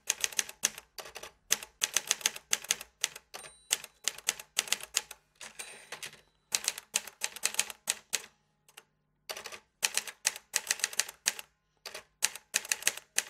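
Typewriter keys striking in quick runs of sharp clacks, broken every second or so by short pauses.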